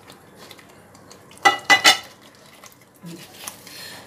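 Cookware clanking as fried paneer cubes are tipped from a frying pan into a pot of spinach gravy: two loud ringing knocks about a second and a half in, then soft stirring in the pot.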